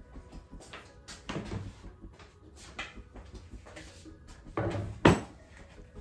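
Handling knocks and clatter on a workbench, with one sharp thud about five seconds in as a maple-and-epoxy cutting board is set down on the bench.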